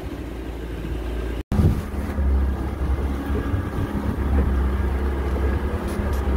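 Small open motorboat under way: its engine runs steadily, with wind buffeting the microphone. The sound cuts out for an instant about a second and a half in.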